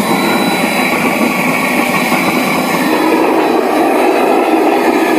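Home-made vegetable-oil-fired furnace burner running: a loud, steady rushing noise from the air blast and the flame of the oil jet.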